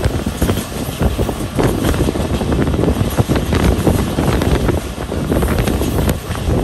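Passenger train running, heard from on board: a steady rumble with irregular clatter from the wheels and carriage, and wind on the microphone.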